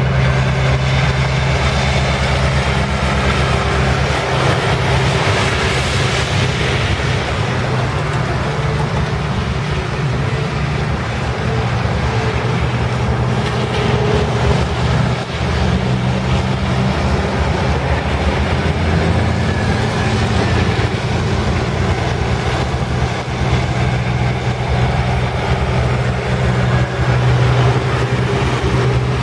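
Diesel tractor-trailers and cars driving past on wet pavement: a steady low diesel engine note runs under tyre noise that swells as vehicles pass close.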